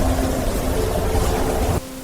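Loud rushing, rumbling noise of a storm-like wind soundscape over soft held music tones, cutting off suddenly near the end to leave only the quiet tones.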